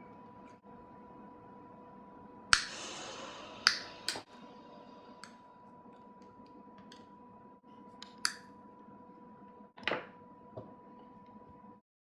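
Scattered sharp clicks and knocks. The loudest, about two and a half seconds in, is followed by a hiss that fades over about a second. A steady faint tone runs underneath, and all sound cuts off just before the end.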